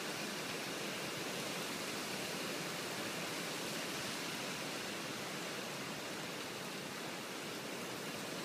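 Heavy rain pouring down in a storm, a steady, even hiss with no thunder.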